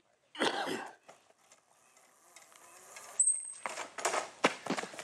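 A small scooter shoots out from under its rider as she falls: a brief high squeal, then a quick run of clattering knocks from about three and a half seconds in. A short shout-like burst comes about half a second in.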